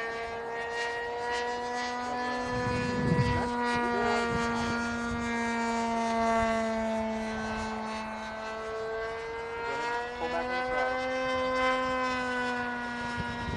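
Hangar 9 P-51 PTS radio-controlled model plane flying overhead, its engine holding a steady drone. The engine note dips slightly about eight seconds in, then rises again.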